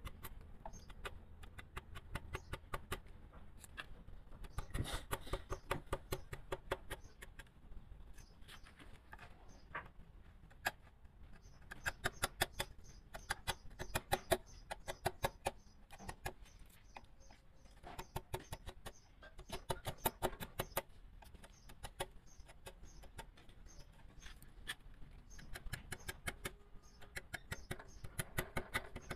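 Rapid runs of sharp taps into wood, about eight a second, coming in bursts of a second or two, from a carving chisel being struck with a mallet.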